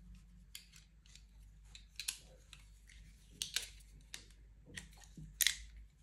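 Leatherman Rebar multitool being folded closed by hand: a scatter of light metal clicks and snaps as the handles and pliers swing shut, the loudest about three and a half seconds in and near the end.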